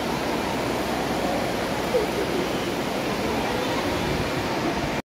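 Steady rushing room noise of a school hall picked up by a phone's microphone, with faint voices now and then. The sound cuts out abruptly near the end.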